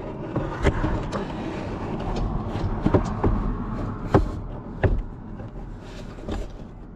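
A handful of separate knocks and clunks, with rubbing and shuffling in between, as a diesel heater mount is worked into a freshly cut panel opening to test the fit.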